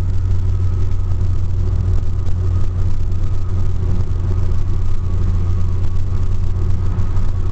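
Steady drone of a car driving on a freeway, heard from inside the cabin: engine and tyre noise with a faint steady whine above it.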